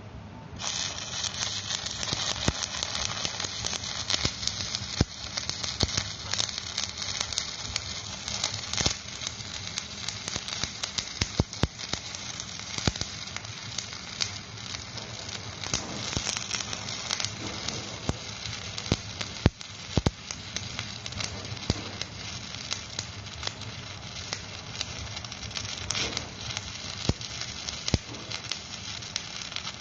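Stick (shielded metal arc) welding arc crackling and sizzling steadily with frequent sharp pops, struck about half a second in.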